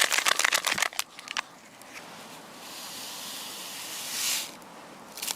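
A small paper-foil coffee sachet crinkling and crackling as it is torn open during the first second. Then comes a soft hiss that swells for about two seconds and fades, with a brief crinkle near the end.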